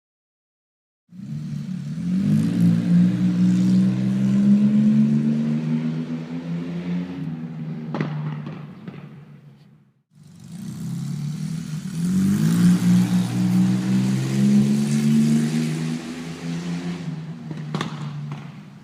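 Car engine accelerating, its pitch climbing slowly as it runs, then fading away, with a sharp backfire pop near the end. The same acceleration and backfire then repeat a second time.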